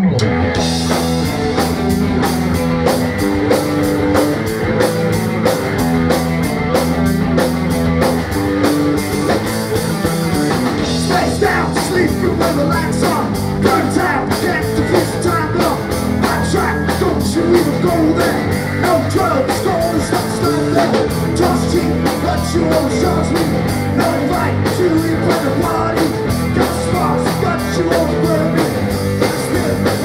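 A live rock band — electric guitar, bass guitar and drum kit — starts a song, loud and driving, with a man singing lead from about ten seconds in.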